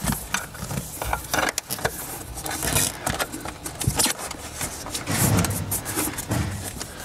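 Hands working inside a car door's speaker opening: irregular rustling, clicks and light knocks of wiring and door-panel handling, with a few duller thumps about five to six seconds in.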